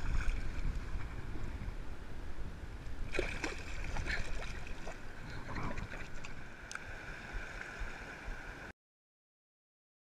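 Water splashing and sloshing in shallow river shallows as a channel catfish is released by hand, with a few sharper splashes a few seconds in, over the steady rush of the river and low wind rumble on the microphone. The sound cuts off abruptly near the end.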